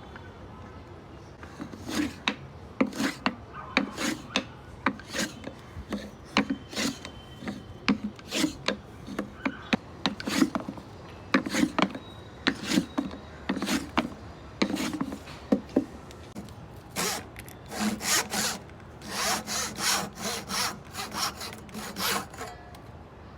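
Hand saw cutting wood in short, even strokes, about two a second. The strokes pause briefly near the middle, then start again.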